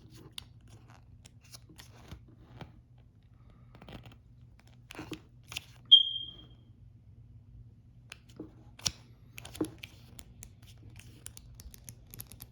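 Tarot cards and their guidebook being handled: scattered light taps, clicks and paper rustles. A short, high ping that fades quickly sounds about six seconds in.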